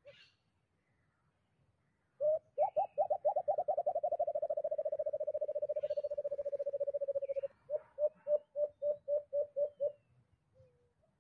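White-eared brown dove calling. A run of low hoots speeds up into a fast rolling trill for about five seconds, then breaks into about nine separate hoots that end near the close.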